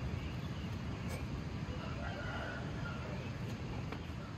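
Steady outdoor background noise with a faint, drawn-out animal call, likely a rooster crowing, about two to three seconds in.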